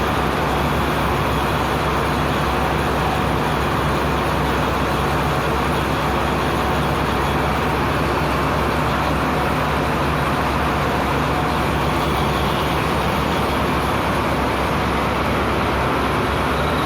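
Coconut-shell charcoal briquette extruder running steadily: a constant mechanical drone over a low, even hum.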